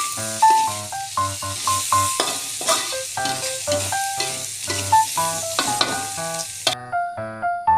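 Tempeh and anchovies sizzling in hot oil as they are stirred, a steady hiss with scraping strokes that cuts off suddenly near the end. Background keyboard music with a steady rhythm plays throughout.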